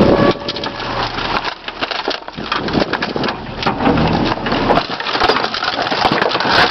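An old microwave oven being crushed by a garbage truck's compactor, giving a dense, irregular run of cracking and snapping as it breaks apart.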